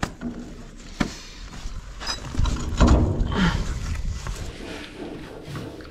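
Sharp knocks and scraping of a used car wheel being handled and fitted onto a farm trailer's hub, with a louder cluster of clunks about halfway through.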